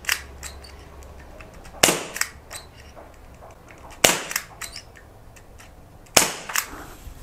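Three sharp shots about two seconds apart from a SIG Sauer SP2022 gas-powered, non-blowback airsoft pistol, fired one at a time in semi-automatic.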